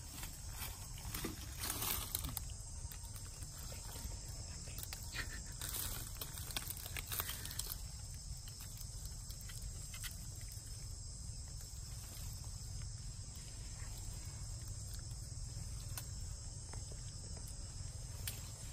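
Rustling and light knocks of baby macaques scrambling close by on leaf litter and brushing against the microphone, busiest in the first eight seconds, over a steady high drone of forest insects and a low rumble.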